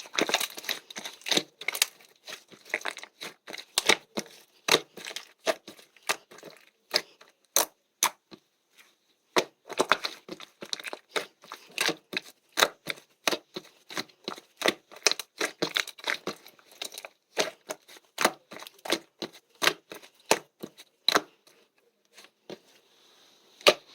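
Slime being squeezed and pressed by hand, a few sharp wet pops and clicks a second as air bubbles in it burst, pausing briefly twice.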